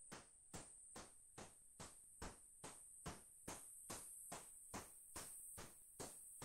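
Near silence with a faint, evenly spaced ticking, about two to three clicks a second.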